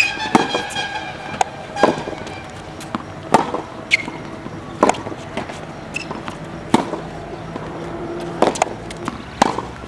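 Tennis rally on a hard court: sharp racquet-on-ball hits about every second and a half, with fainter ball bounces between them.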